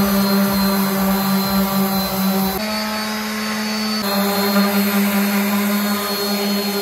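Electric woodworking power tool running with a steady motor whine, working wood for a phone holder; its tone changes slightly for a second or so in the middle, then returns.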